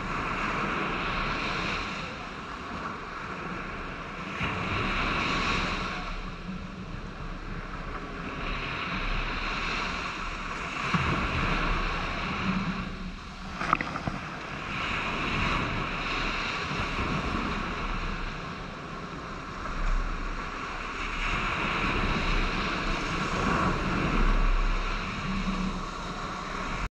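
Surf washing up the beach, swelling and fading every few seconds, with wind rumbling on the microphone. A single sharp click near the middle.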